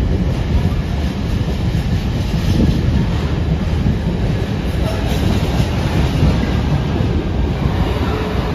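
Container freight train's loaded flat wagons rolling past at the platform edge: a loud, steady rumble of steel wheels on the rails.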